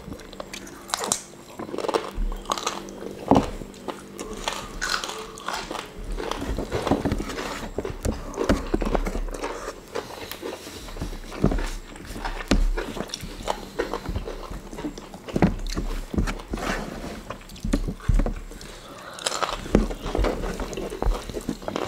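Close-up chewing and mouth sounds of two people eating rice and fried chicken, with irregular sharp clicks.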